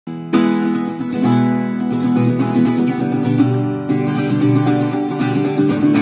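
1938 German Marius gipsy folk acoustic guitar played as a sound test: a chord struck about a third of a second in, then strummed and picked chords ringing on, with another sharp strum near the four-second mark.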